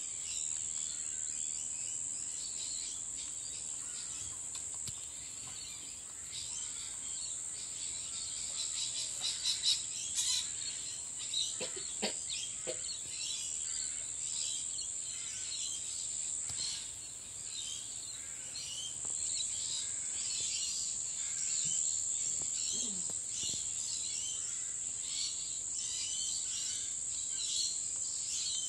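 Guinea pigs eating dry seed mix from a glass bowl, with rapid, irregular crunching, over a constant high-pitched hiss. A few brief chirps come about twelve seconds in.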